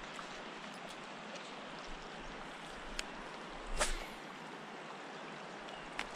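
River water flowing steadily over a stony bed. A few faint clicks sound over it, and a short louder swish comes about two-thirds of the way through.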